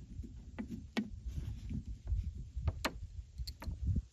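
Scattered light metallic clicks and ticks as a small brass hose barb and a 7mm nut driver are handled, the barb being worked off the driver's socket, over a low rumble.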